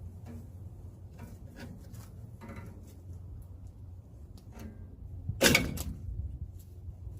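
Hand tools and metal drum-brake parts being handled: scattered light clicks and knocks, and one loud scraping clatter about five and a half seconds in, over a steady low hum.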